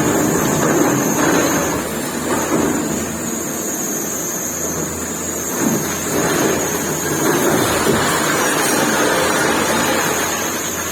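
Excavator's diesel engine running steadily at working speed during building demolition, its sound swelling and easing slightly, with a thin steady high whine on top.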